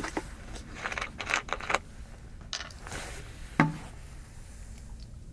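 Short scrapes, rubs and clicks of something being handled, then a single sharp knock or thump about three and a half seconds in, the loudest sound here.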